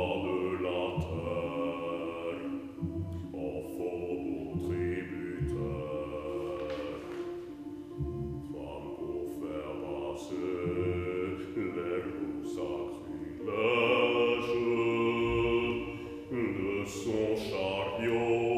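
A baritone singing a slow, chant-like line in long held notes, phrase after phrase with short breaks between them. A louder phrase comes about two-thirds of the way through.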